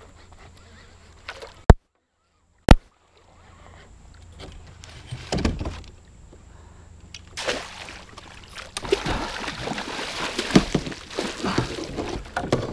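Water splashing and sloshing beside a canoe as a hooked musky thrashes and is scooped into a landing net, the splashing building from about halfway and busiest near the end. Near the start come two sharp clicks about a second apart, the loudest sounds here.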